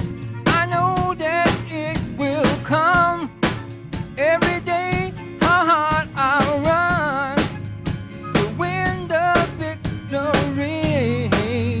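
Live gospel band playing: a drum kit keeps a steady beat of about two strokes a second under a bending, ornamented lead melody.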